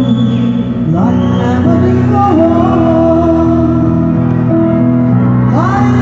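Live concert music: a woman singing a slow ballad to guitar accompaniment, with sustained notes and sung phrases that slide in pitch.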